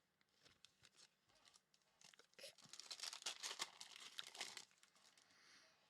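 A basketball trading-card pack wrapper being torn open and crinkled, with the loudest crackling from about two seconds in to past four seconds, and faint clicks of card handling around it.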